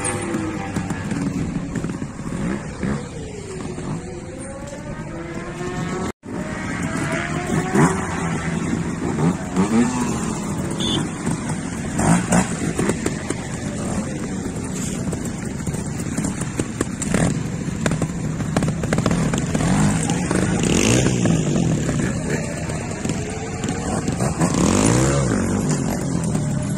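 Trials motorcycle engine revving up and down in repeated short blips as the bike picks its way over rocks and steps. The audio drops out for a moment about six seconds in.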